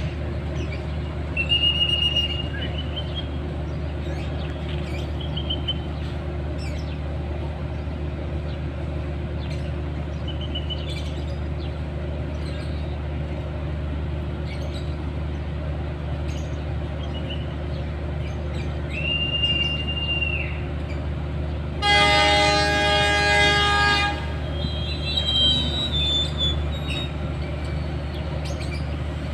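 Diesel locomotive of the standing Serayu passenger train idling with a steady low hum. A high, steady whistle sounds for about a second and a half, then the locomotive horn blows once for about two seconds: the departure signals.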